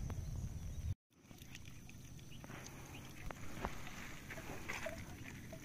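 Quiet outdoor background: a low rumble on the microphone that cuts off abruptly about a second in, then faint scattered clicks and taps over a steady faint high tone, with a few short chirps near the end.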